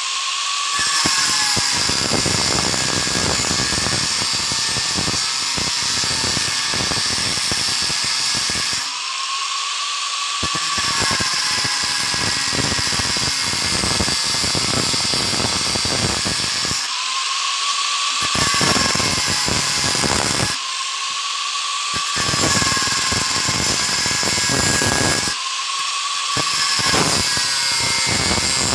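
Hitachi angle grinder with an abrasive cut-off disc running and cutting through the copper winding wire at the end of a motor armature. The high motor whine is steady throughout, while the grinding noise of the cut drops away for a second or so several times as the disc comes off the work.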